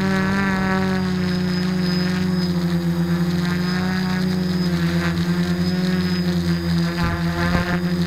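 Quadcopter's motors and propellers humming close by, a steady drone whose pitch wavers slightly as the throttle shifts, briefly unsteady near the end.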